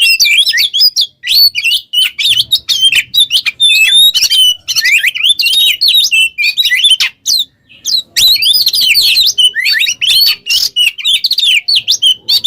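Oriental magpie-robin (kacer) singing loud and nonstop in a rapid, varied stream of whistles, chirps and trills, pausing briefly about seven seconds in.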